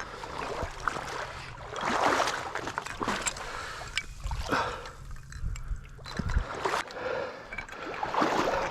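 Water sloshing and splashing in soft, irregular bursts, as of people moving in shallow water.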